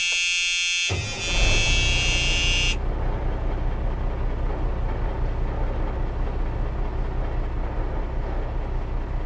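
A truck air horn blasts for nearly three seconds, its tone shifting about a second in. A low, steady engine rumble starts under it and runs on after the horn cuts off.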